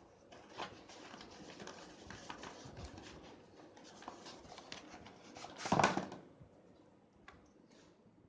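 Packaging being handled: scattered small clicks and rustling, with one louder rustle lasting about half a second near six seconds in.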